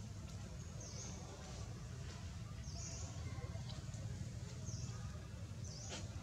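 A bird chirping: short high-pitched chirps, each dropping slightly, repeating about every one to two seconds, four in all, over a low steady rumble.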